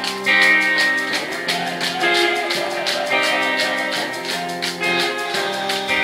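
Live rock band playing: electric guitars ringing out over a steady drum beat, amplified through the stage PA.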